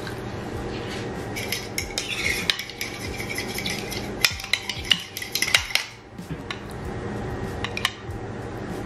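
Metal spoon stirring a thick yogurt dressing in a ceramic bowl, clinking and scraping against the sides in a quick run of taps that stops about six seconds in, followed by a couple of light taps.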